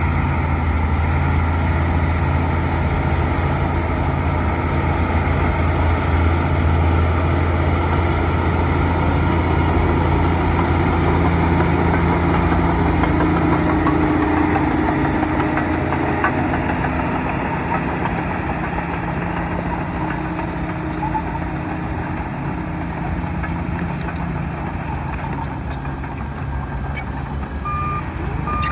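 Bulldozer's diesel engine running steadily with a heavy low drone, which eases off about two-thirds of the way through. Near the end its reversing alarm starts beeping at an even pace.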